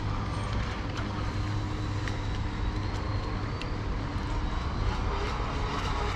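Joysway Bullet radio-controlled speedboat's electric motor giving a faint high whine as it runs across choppy water, the pitch rising slightly midway. A steady low rumble lies under it.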